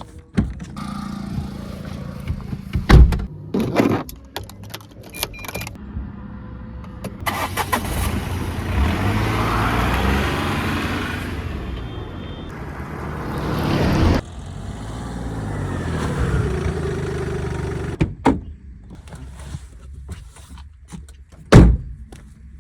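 Engine running and revving, rising and falling in pitch, with sharp knocks about three seconds in and again near the end.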